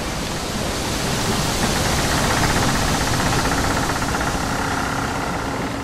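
Reciprocating saw (Sawzall) cutting metal: a steady, loud, harsh noise with a faint fast regular pulse.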